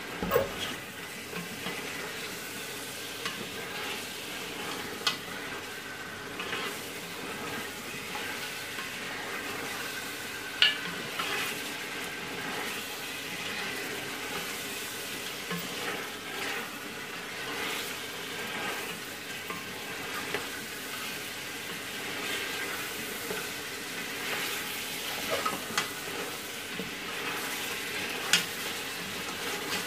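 Mutton pieces frying and sizzling in hot oil in a large aluminium pot, stirred with a wooden spoon, with a few sharp knocks of the spoon against the pot.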